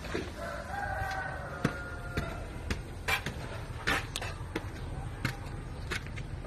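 A rooster crowing once, a held call of about two seconds near the start, with scattered sharp clicks and knocks throughout.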